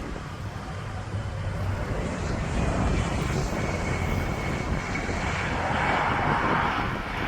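Jet airliner's engines on landing approach, the rumble growing louder as it nears, with a steady high whine joining about three seconds in.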